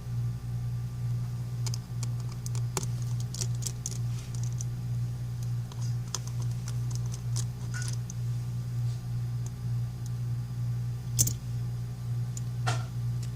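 Small tools clicking and tapping on an iPhone 5C's internal parts while its screen shield is taken off and the screen connectors are disconnected: scattered light clicks, one sharper click about 11 seconds in, over a steady low hum.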